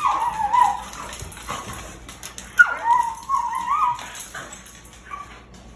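Dog giving high, wavering hyena-like cries while scuffling with another dog: a short one at the start and a longer one, rising and falling in pitch, about two and a half seconds in.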